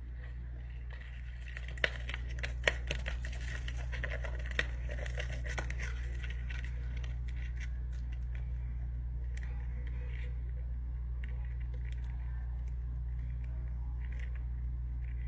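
A steady low hum with scattered faint clicks and crackles over it, and a few sharper ticks about two to five seconds in.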